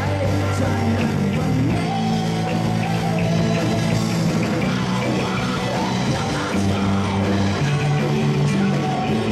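A rock band playing a song, with a singer's voice over the band.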